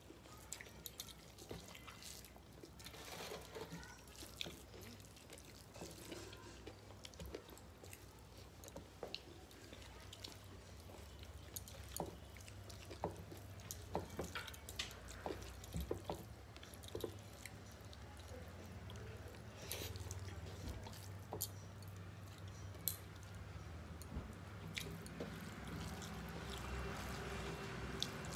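Moist eating sounds of rice and curry eaten by hand: chewing, lip smacks and fingers squishing rice on metal plates, heard as many scattered short clicks over a faint low hum.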